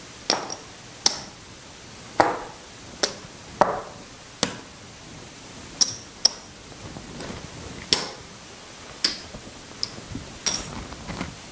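Casino chips being picked up and set down by hand: about a dozen sharp clay-chip clacks at uneven intervals, some with a brief high ring.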